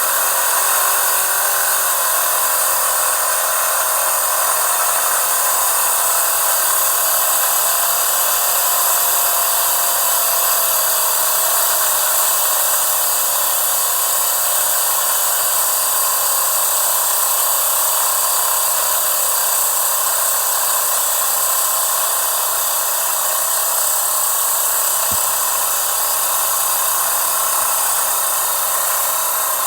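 Electric lint remover (fabric shaver) running steadily, its small motor spinning the blades with a high whir. There is a faint click about 25 seconds in.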